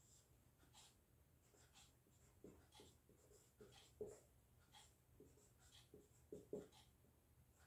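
Faint squeaks and scratches of a marker pen writing on a whiteboard, in short irregular strokes.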